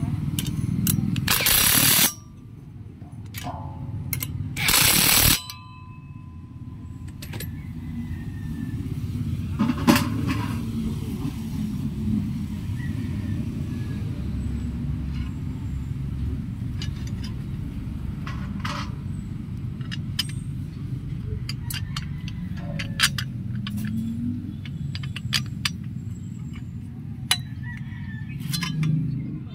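Metal brackets of a satellite dish mount clicking and clinking as they are handled and fitted together: many separate sharp clicks over a steady low rumble. Two loud rushing noises, each about a second long, come in the first five seconds.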